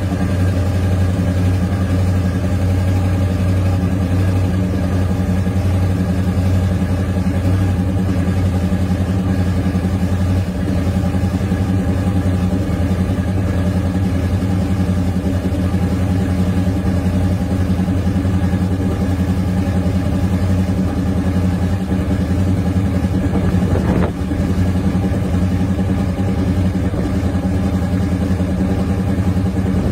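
Ford 302 V8 in a 1987 Ford Ranger idling steadily, still warming up after a cold start. One short click comes about three quarters of the way through.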